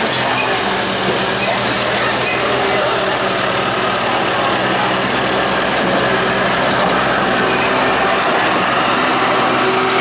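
Telehandler's diesel engine running steadily as the machine drives with a load on its boom.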